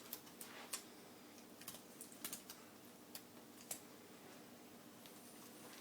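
Faint, irregular clicks and taps of hands working with scotch tape and paper while taping feathers onto a toilet-paper ball.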